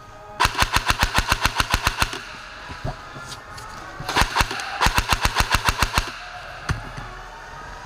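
Airsoft M4 rifle firing on full auto: a burst of about a second and a half at roughly eleven shots a second, then a short burst and a second burst of about a second.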